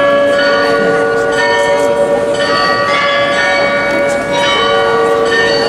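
The Rathaus-Glockenspiel's tower bells playing a tune, a new note struck about once a second, each ringing on under the next.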